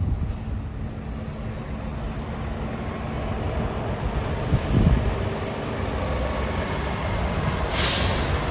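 Diesel engine of a Freightliner Cascadia day-cab tractor running as the truck drives slowly toward the listener, a steady low rumble growing slowly louder. A short hiss comes near the end.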